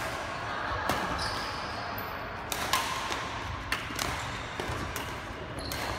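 Badminton rackets hitting a shuttlecock in a doubles rally: a string of sharp hits about a second apart, some in quick pairs.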